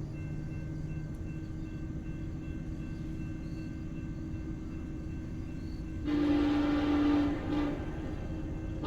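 Norfolk Southern SD70ACe locomotive approaching with a steady low rumble, then its air horn sounding a long chord about six seconds in and a short toot just after, part of a horn show. A further blast starts at the very end.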